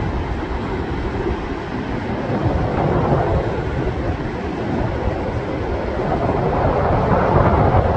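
Wind buffeting the microphone over the steady wash of ocean surf breaking on a sandy beach, swelling slightly toward the end.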